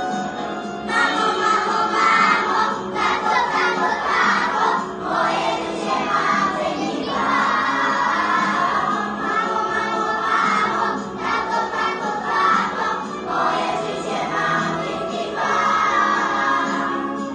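A group of young children singing a song together in Polish over recorded backing music, the singing coming in strongly about a second in.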